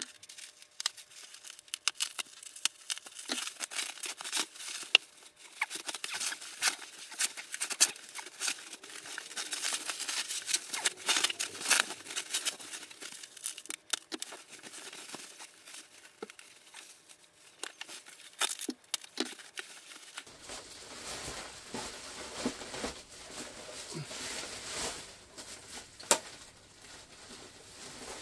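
Bubble wrap and packing tape pulled off by hand, crinkling and tearing in a dense run of irregular crackles that thins out in the last few seconds.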